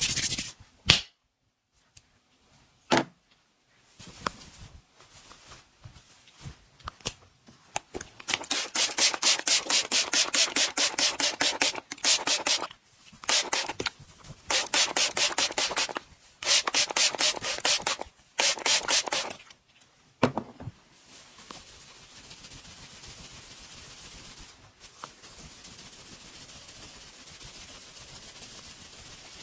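Hands rubbing briskly during a massage: rapid rhythmic rubbing strokes, about five a second, in several runs of a few seconds each. A few sharp clicks near the start, the loudest about a second in, and a faint steady hiss in the last third.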